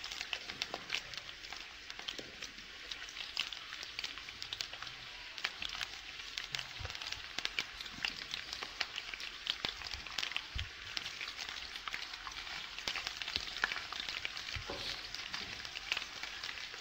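Shallots, garlic and curry leaves sizzling and crackling in hot oil in a pan, with fine pops throughout and an occasional soft knock.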